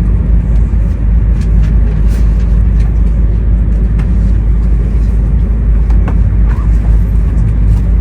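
Running noise inside an E2 series Shinkansen car: a loud, steady low rumble with scattered faint clicks and knocks.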